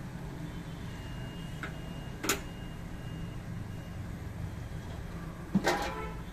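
Two metallic clanks, about two seconds in and again near the end, the second ringing briefly, as a steel oil-drain collector bowl on its stand is handled and raised under a car on a lift. A steady low hum runs underneath.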